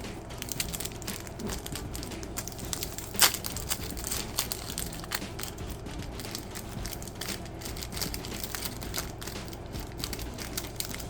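Trading-card pack wrapper being torn open and handled: a run of crinkling and crackles with one sharper crack about three seconds in.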